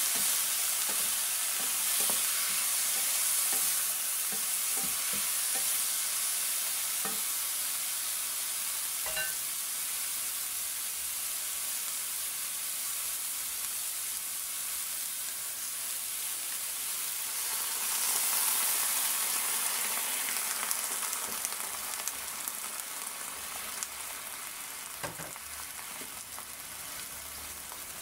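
Vegetables sizzling steadily in hot oil in a nonstick wok, with a few short knocks and scrapes of a wooden spatula stirring them. The sizzle eases off somewhat in the last several seconds.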